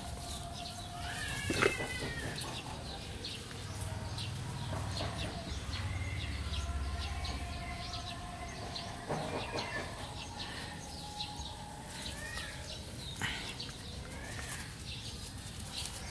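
Scattered short, high chirping calls from small animals, with a louder sharp call and knock about a second and a half in and a few soft knocks later on.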